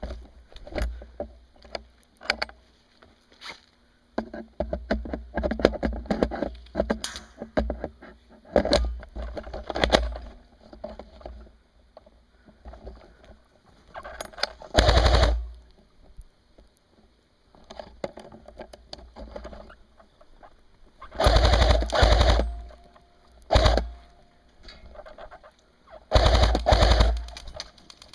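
G&G Combat Machine airsoft electric rifles firing bursts on full automatic, the loudest about a second long each, with shorter, quieter rattling bursts in between.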